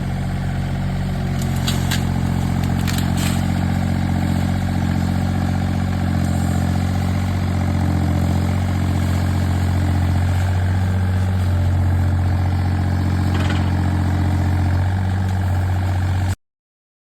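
Tata Hitachi Zaxis-33U mini excavator's diesel engine running steadily, its pitch shifting slightly a few times, with a few sharp knocks a couple of seconds in and once more near the end. The sound cuts off suddenly near the end.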